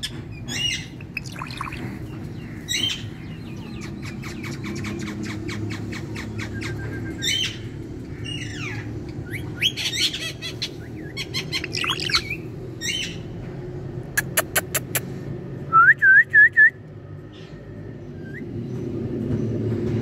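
Indian ringneck parakeet (rose-ringed parakeet) making short squawks and chirps at intervals, with fast runs of clicking in between. About two-thirds of the way in come four sharp loud clicks, then three quick rising chirps, over a steady low hum.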